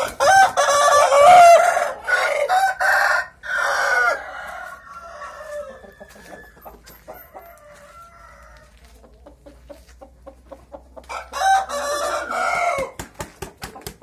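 Gamecock roosters crowing, loudly through the first four seconds and again about eleven seconds in, with quieter clucking in between.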